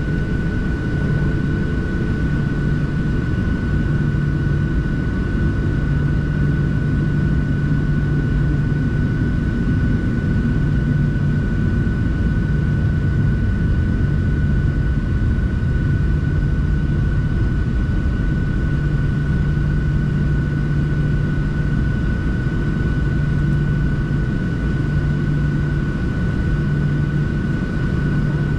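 Steady cabin noise of a Boeing 737-700 with its CFM56-7B engines running: a loud, even rumble with a steady high tone above it.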